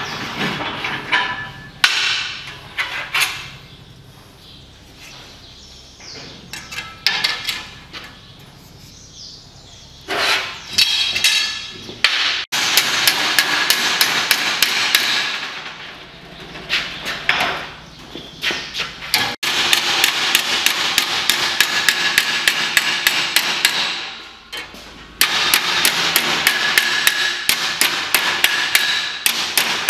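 Body hammer striking a strip of sheet steel clamped between angle irons on a steel bench, bending it over into a flange. After some scattered knocks and handling clatter, rapid, steady blows of about five a second start about twelve seconds in, pausing briefly twice.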